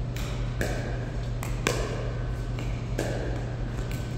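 Pickleball paddles hitting a plastic ball in a warm-up rally: three sharp pops a little over a second apart, each with a short ring.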